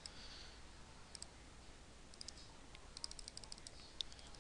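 Faint clicking at a computer: a few scattered clicks, then a quick run of clicks about three seconds in.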